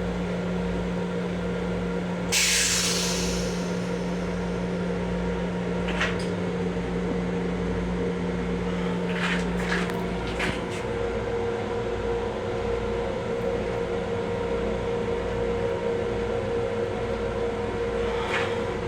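Long Island Rail Road M7 electric railcar running: a steady electrical hum over a low rumble. About two seconds in there is a short hiss, and a few clicks and knocks follow. About ten seconds in the hum changes to a higher steady tone.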